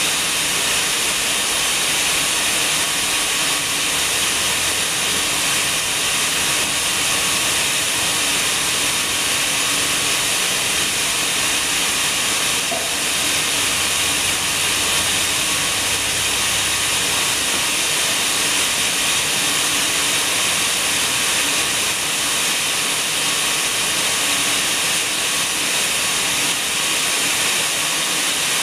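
Steady, even hiss that does not change, with no distinct knocks or scrapes standing out.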